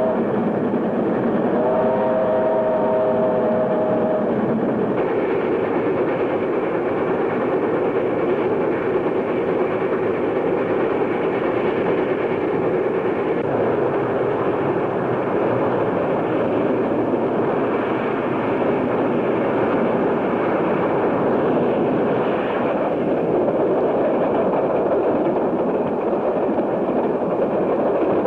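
Steam locomotive running at speed: a steady, loud rushing rumble of the train on the rails. Its multi-tone steam whistle blows once for about two and a half seconds near the start.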